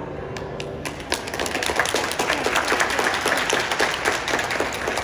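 The last grand piano chord dies away, and about a second in an audience breaks into applause.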